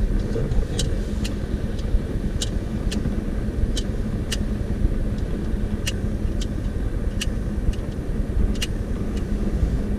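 Road and engine noise heard inside a car's cabin as it creeps along in city traffic: a steady low rumble with a faint hum, and light sharp ticks at uneven spacing, roughly one a second.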